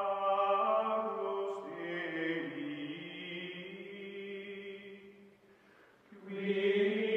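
Outro music of chanted singing: voices holding long, steady notes that change pitch slowly. It fades down about five seconds in and swells back up about a second later.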